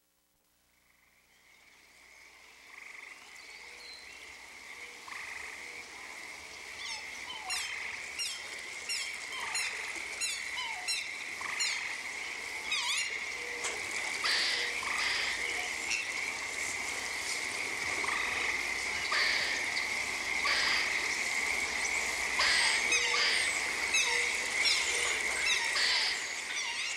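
Outdoor frog chorus fading in from silence: frogs croaking over a steady high-pitched drone, with a run of short falling chirps in the middle and louder repeated croaking calls in the second half.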